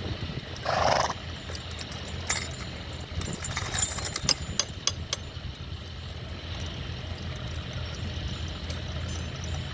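An engine, most likely a tractor's, running steadily at low revs, with a short louder burst about half a second in and scattered sharp clinks and knocks over the next few seconds.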